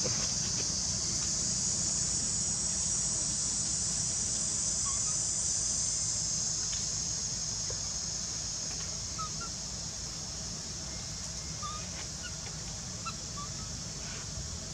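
Steady high-pitched drone of insects over a low rumble, with a few faint short chirps from about five seconds in.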